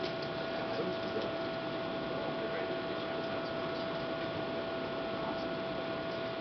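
Steady hum with a constant high-pitched tone over a hiss, and faint scattered clicks.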